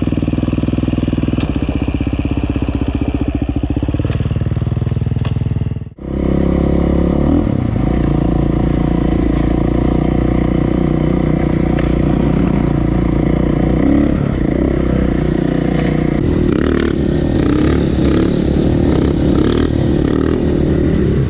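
Single-cylinder four-stroke KTM EXC enduro bike engine revving as the bike is ridden over a log, its pitch rising about four seconds in. After a cut about six seconds in, dirt bike engines run steadily along a trail, heard from the rider's own bike, with the engine note rising and falling slightly.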